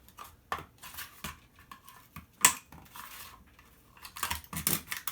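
Sharp clicks, knocks and scraping of a hand tool working a plastic control knob loose from a dryer's control board, with one loud knock about halfway through and a quick run of knocks near the end.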